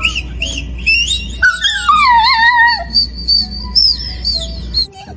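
Dog vocalizing at a phone screen: a string of high, wavering whines and yips, with a longer falling howl-like glide in the middle. The sound cuts off abruptly near the end.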